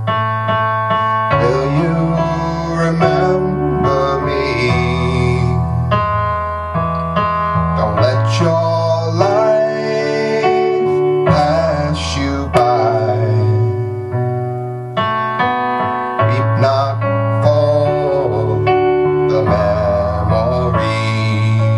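Music: an instrumental break played on piano and electric keyboard, with a wavering lead melody over held low bass notes.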